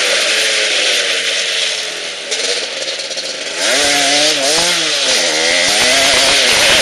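Suzuki RM250 single-cylinder two-stroke motocross engine in a quad, running hard under throttle. It dips a little about two seconds in, then revs up and down repeatedly, its pitch rising and falling with the throttle.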